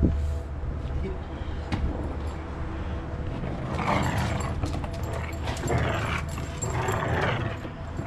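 A Renascence Bulldogge playing tug with a handler, giving a series of short, rough vocal bursts about a second apart that start about four seconds in.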